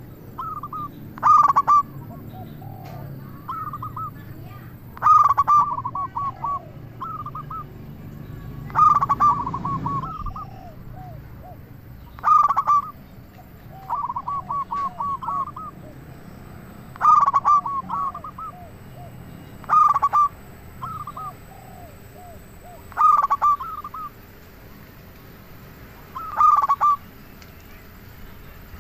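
Zebra dove (perkutut) singing: a run of repeated cooing phrases, each a quick string of short notes, coming roughly every three seconds, with fainter, lower coos between the phrases.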